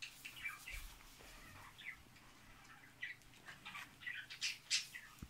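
A Pembroke Welsh corgi whining in short high-pitched squeaks, two or three a second, some sliding down in pitch, with a few light clicks among them.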